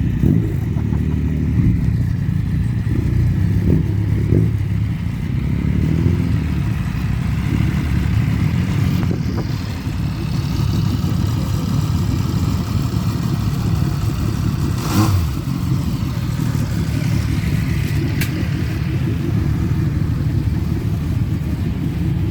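Motorcycle engines running with a steady low rumble, with a sharp click about two-thirds of the way through.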